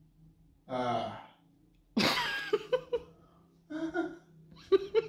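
A person's voice in short bursts of vocal sounds and exclamations with no clear words, the loudest about two seconds in, with quiet gaps between.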